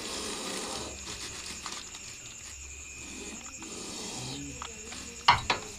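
Indian cobra hissing in breathy stretches as it is handled, with two sharp metallic knocks from the snake tongs near the end.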